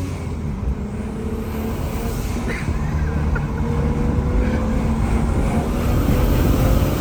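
A car driving, its engine note rising slowly as it gains speed over a steady low rumble of engine and road noise.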